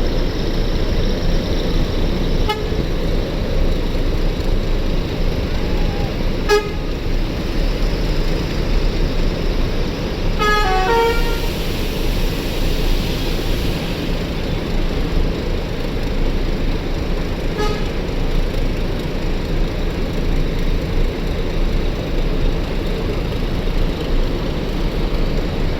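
Steady road traffic noise with short horn toots about two and six seconds in and again near eighteen seconds. About ten seconds in a bus's telolet (basuri) horn plays a quick run of several notes stepping down in pitch, followed by a few seconds of hiss.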